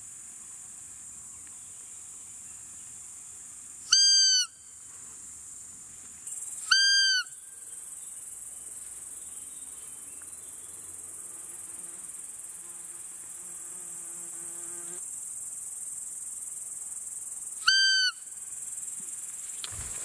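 Roe deer call blown three times, each a short squeaky fiep under half a second, the first two about three seconds apart and the third near the end, imitating a roe doe to lure a rutting buck. A steady high insect chirring runs underneath.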